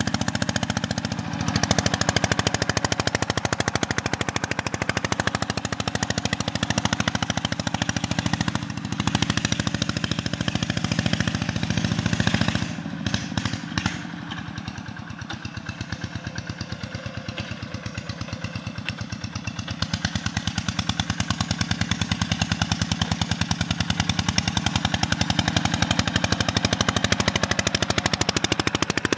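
Single-cylinder diesel engine of a two-wheel walking tractor pulling a disc plough through soil, its loud exhaust popping in a fast, steady beat. It breaks off briefly about halfway through, comes back quieter, and grows louder again after a few seconds.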